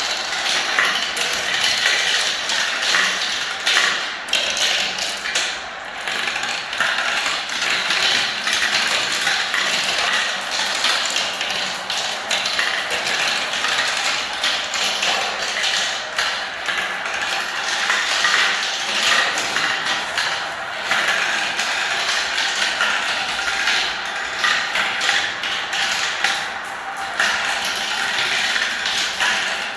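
Many marbles rolling down the spiral ramps of a marble run: a dense, continuous clatter of small clicks and taps.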